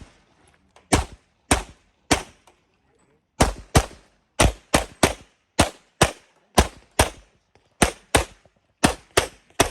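Competition pistol (a 2011-style handgun) fired in rapid strings, mostly pairs of sharp shots about a third of a second apart, with short pauses between pairs.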